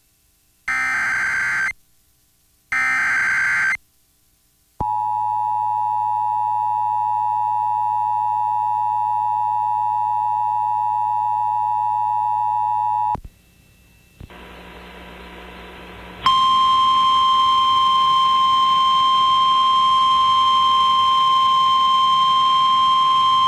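Emergency Alert System tones. First come the last two screeching digital header bursts, each about a second long. Then the two-tone attention signal holds for about eight seconds, a couple of seconds of static follow, and from about two-thirds of the way through a steady single-pitch alert tone sounds, the NOAA Weather Radio 1050 Hz warning tone that comes before a weather warning.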